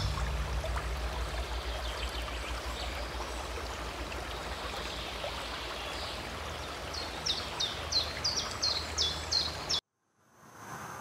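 Nature ambience of running water with a low rumble under it; from about seven seconds in, a bird chirps a quick run of short falling notes. It all cuts off suddenly near the end.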